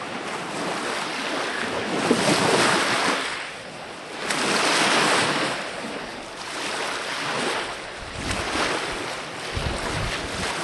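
Small lake waves washing onto the shore, swelling and fading every two to three seconds, with wind buffeting the microphone.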